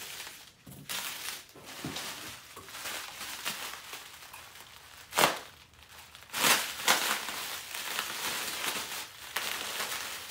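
Plastic bubble wrap crinkling and rustling as it is handled and pulled off a part, with a single sharp crack about five seconds in.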